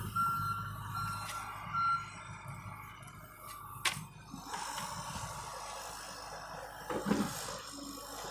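John Deere excavator's travel alarm beeping a few times in the first two seconds over the diesel engine running, with a sharp click about four seconds in as the machine works on.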